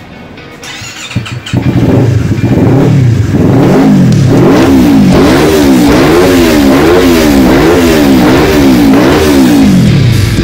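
Yamaha R25 parallel-twin engine through an aftermarket Daytona exhaust, coming in about a second and a half in and then free-revving on the stand. The throttle is blipped up and down in a steady rhythm, a bit more than once a second, as a rev test after porting and an ECU remap.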